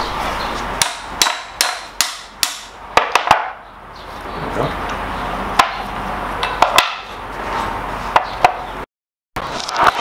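Hammer tapping on a stuck piston wrist pin to drive it out of an LS piston and rod. About eight sharp taps come in quick succession, then a few more spaced out. The full-floating pin is seized with old oil residue.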